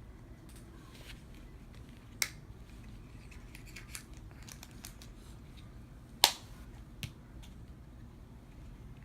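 A small sealed foil blind bag being worked open by hand: faint crinkling and ticking with a few sharp clicks, the loudest about six seconds in. The bag is hard to open.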